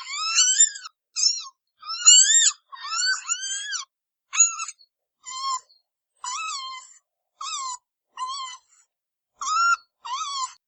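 Red panda calling: about a dozen short, high-pitched calls, each rising then falling in pitch, one after another with brief pauses between.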